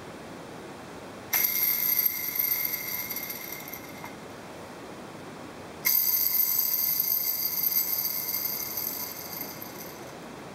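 Metallic ringing from the removed crankshaft and its bearings of a Yamaha R1-Z two-stroke twin, set off twice, each time with a sudden start and a high ring that fades over a few seconds. The crank bearings have play and are the cause of a bad noise at idle.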